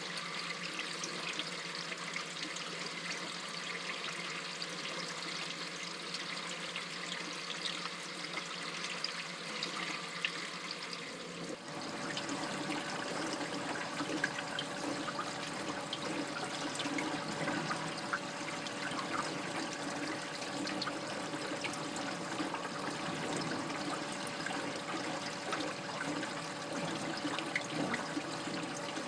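Aquarium water trickling and splashing in a steady rush, the flow through the sump and tank system. About twelve seconds in the sound changes abruptly and becomes fuller and deeper.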